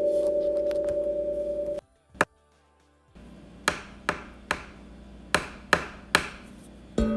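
A ringing bell-like tone cuts off abruptly, followed by a single click and a second of near silence. Then come two groups of three sharp, ringing knocks, about two and a half a second. A new bell-like tone is struck near the end.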